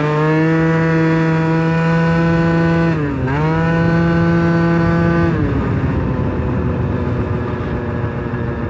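Sachs Speedjet RS scooter engine running at a steady high pitch, with a brief drop in pitch about three seconds in before it picks up again. About five seconds in the engine note fades, leaving wind and road noise as the scooter rolls on.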